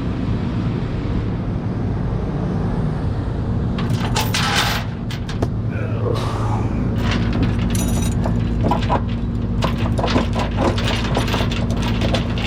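Vehicle engine running steadily with a low hum, with scattered clicks and rattles joining it in the second half.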